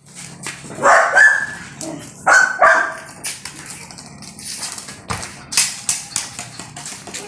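A puppy barking in short sharp barks, in two clusters in the first three seconds, followed by scattered light taps and knocks.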